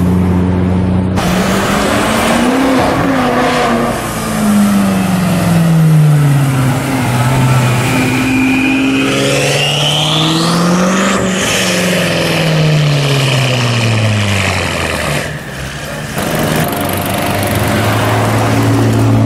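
High-performance car engines driving past one after another, revving up and easing off in long rising and falling sweeps, with a high whine that climbs in pitch in the middle. The sound changes abruptly where clips are cut. Near the end a Ferrari 599's V12 runs steadily close by.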